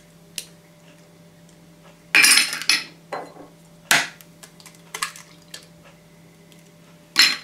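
An egg is cracked into a plastic blender jug, with knocks and clinks of the jug and a small glass being handled: a loud rattly knock about two seconds in, a sharp tap about two seconds later, a few light ticks, and another loud knock near the end.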